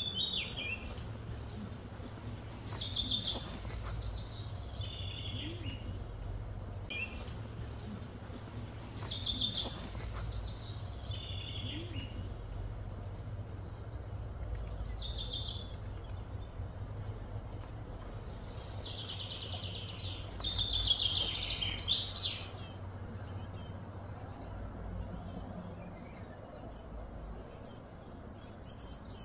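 Birds singing: short chirping phrases repeat every second or two, busiest a little after the middle, over a steady low hum.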